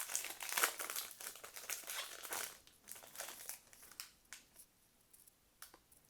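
Crinkling of a trading card pack wrapper as the pack is opened and handled. It is dense for about the first two and a half seconds, then dies away to a few light clicks and taps.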